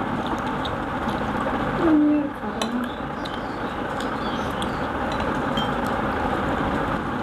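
Spoons clinking against china plates and serving bowls as food is served and eaten, over a steady background noise, with a short vocal sound about two seconds in.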